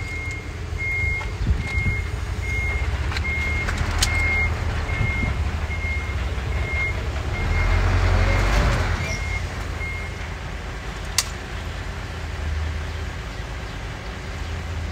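A heavy truck's reversing alarm beeping steadily, a little more than once a second, over the low rumble of its engine; the beeping stops about ten seconds in. A louder rush of noise swells briefly around eight seconds in.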